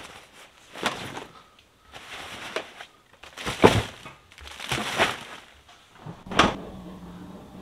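Camping gear being loaded into a car's cargo area: about six separate soft thuds and fabric-and-plastic rustles as bags and a rolled foam mat are shoved into place.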